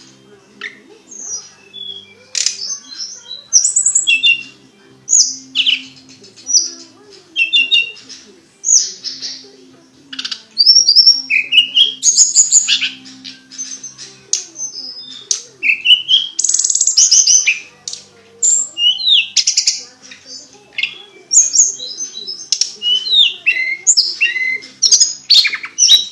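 Tledekan songbird singing energetically: rapid, high-pitched whistled and chirping phrases that sweep up and down in short bursts with brief gaps, varying from phrase to phrase.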